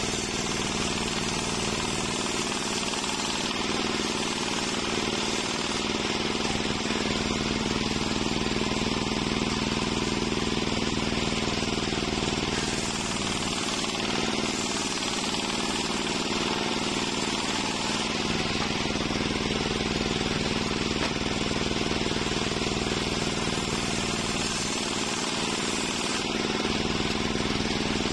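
Large table-mounted circular saw running steadily and ripping waru (sea hibiscus) timber, a constant hum under the hiss of the blade cutting.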